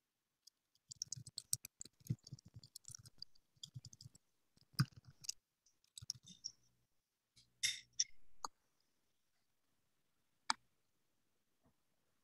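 Faint computer keyboard typing: irregular runs of quick key clicks, a few more clicks about eight seconds in, and one last keystroke past ten seconds.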